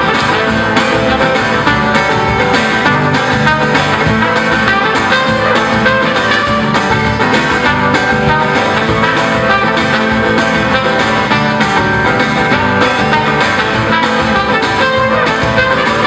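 Live band playing an instrumental passage: trumpet over acoustic and bass guitar, with a steady percussion beat.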